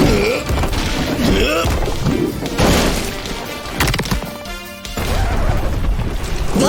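Cartoon action music with crashing and thudding sound effects, and a few short vocal grunts.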